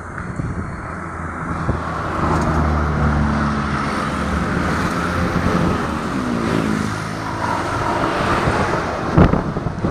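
Strong wind blowing across the microphone with a low rumble, and a motor vehicle's engine passing by in the middle, its pitch dropping as it goes. A sharp thump sounds near the end.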